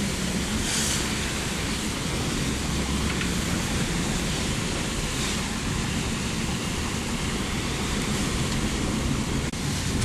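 Steady rush of wind and road noise from a moving car, heard from inside the cabin, with a brief break near the end.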